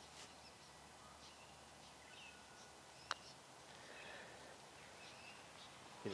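Quiet outdoor air with faint, short bird calls, and one sharp click about three seconds in: a putter striking a golf ball.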